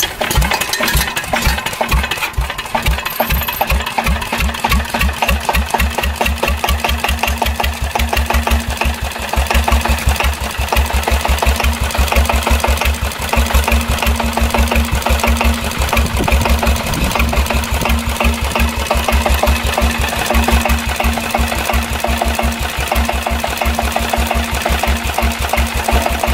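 Deutz MAH711 single-cylinder diesel engine of a custom motorcycle catching after hand-cranking. Its firing is uneven for the first couple of seconds, then it settles into a steady, rapid idle beat.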